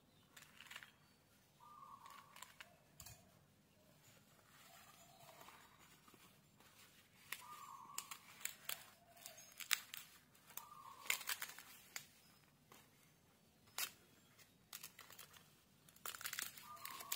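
Banana leaves crinkling and crackling as they are folded tightly around sticky rice and a banana, a run of short sharp crackles that grows busier about halfway through.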